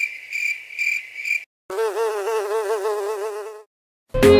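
Cartoon sound effects: a high chirping tone pulsing about twice a second that stops about a second and a half in, then, after a short gap, a buzzing drone wavering up and down in pitch for about two seconds, like an insect.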